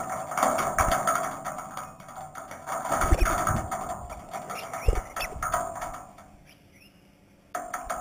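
Crimson rosellas feeding on a perforated metal table: a busy clatter of beak and foot taps and scattered seed, with a few heavier thumps. Near the end it drops to a quieter stretch with a few faint bird chirps.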